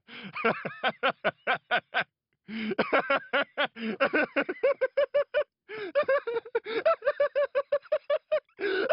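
A man's long, hearty laugh in rapid even pulses, about four to five a second, broken by short breaths about two seconds in and again past the middle. The pitch climbs higher in the second half.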